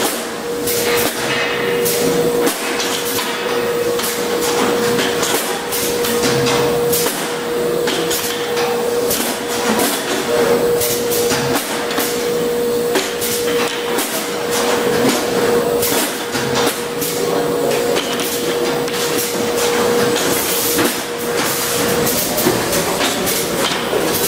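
Schäfer & Flottmann automatic packaging machine running as it handles cardboard cases: steady mechanical clatter with frequent sharp knocks and clicks over a constant whine that drops out briefly near the end.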